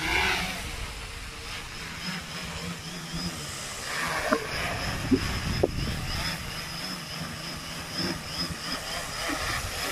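A homemade F450 quadcopter flying low, its four brushless motors and propellers buzzing with a steady high whine. A few short clicks come about halfway through.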